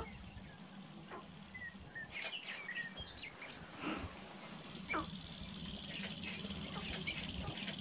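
Sharp-tailed grouse calling on a lek: several displaying males give scattered short clucks, chirps and coos, with two sharper calls about four and five seconds in.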